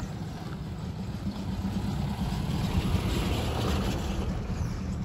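A motor vehicle passing: its engine and road noise build, peak about three seconds in and fade, over a steady low rumble.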